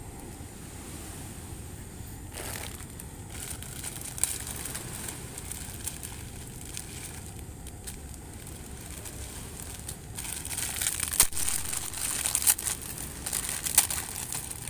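Plastic instant-noodle seasoning sachets crinkling as they are torn open and squeezed, a dense crackly rustle that starts about ten seconds in. Before that only a steady low background noise.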